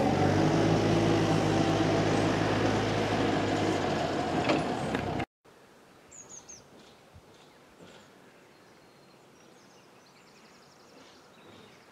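A nearby engine running steadily, cut off abruptly about five seconds in. After that there is only faint outdoor quiet with a few brief bird chirps.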